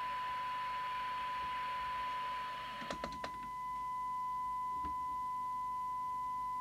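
Steady test tone from a signal generator, received and demodulated by a DNT M40 FM CB radio and played through its speaker while its receiver is aligned. A hiss behind the tone dies away about three seconds in with a few faint clicks, leaving a clean, pure tone.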